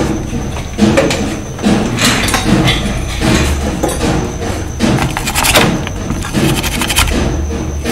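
Repeated scrubbing strokes, about one a second, as a power supply circuit board is cleaned.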